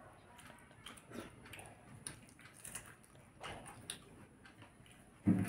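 Quiet eating sounds of a man eating rice by hand from a steel plate: faint chewing and soft ticks and clinks at the plate. Right at the end, a short, louder voice-like sound breaks in.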